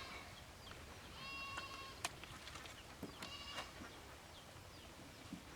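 Two short, high-pitched animal calls, the first about a second in and the second about three seconds in, with a sharp click between them.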